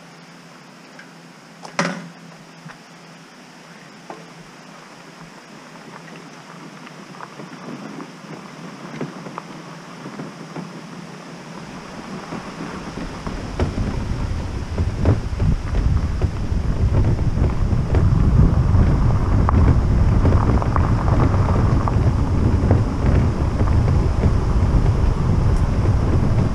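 A quiet start with one sharp click about two seconds in. Then wind buffeting the microphone and road rumble build up as the e-bike gets moving, and become a loud, steady low rumble with small rattles for the rest of the ride.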